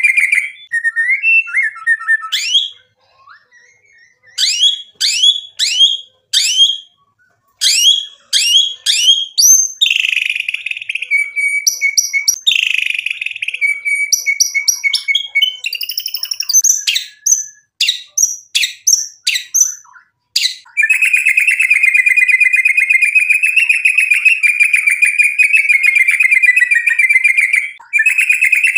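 White-rumped shama (murai batu) singing loudly and in full voice. It opens with a fast trill, then a series of sharp rising whistled notes and a few buzzy phrases that end in a held whistle. For the last third it sings one long, rapid rattling trill, broken only briefly near the end.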